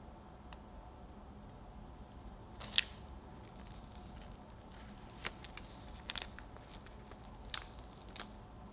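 Chef's knife cutting down through a fudgy brownie. Its thin, crisp top crust gives a few sharp crackles and clicks, the loudest nearly three seconds in.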